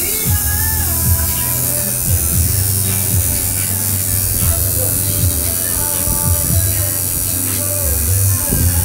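Electric tattoo machine buzzing steadily while the needle works ink into the skin of a forearm; a loud, low buzz that shifts slightly in pitch as it runs.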